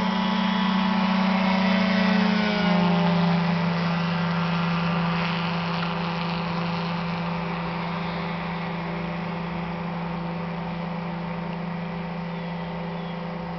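Vector 627 ultralight aircraft's engine and propeller running at full takeoff power. About two and a half seconds in the pitch drops as it passes, then the steady engine note slowly fades as it climbs away.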